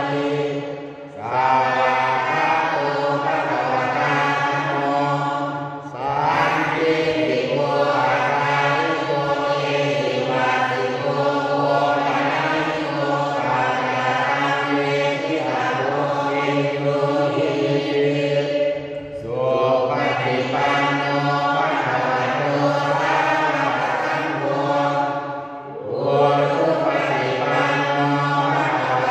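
Thai prayer chanting (suat mon) led by a man into a microphone, in long, steady recited phrases broken by four short breath pauses.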